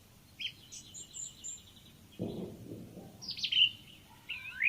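Small birds chirping: a quick run of repeated chirps early on, then several rising, sweeping chirps toward the end.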